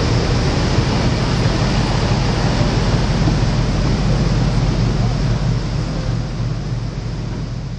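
Passenger boat's engine running with a steady low drone under the rush of churned water along the hull, the sound fading out near the end.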